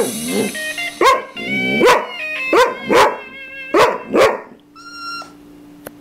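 Samoyed dog 'singing': a run of about six short 'woo' calls, each sliding up and falling back in pitch, roughly in pairs, until he stops about four and a half seconds in.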